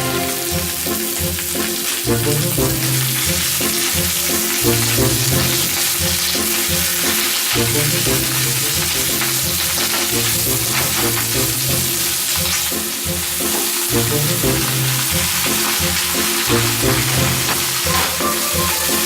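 Food sizzling steadily in a hot frying pan, with background music that has a repeating bass line.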